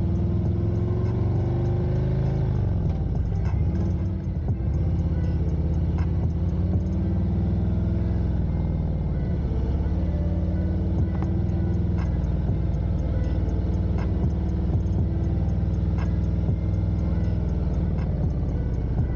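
Harley-Davidson Street Glide Special's Milwaukee-Eight 114 V-twin running while the bike is ridden at low speed. The engine note rises for the first two seconds or so, falls back, then holds steady.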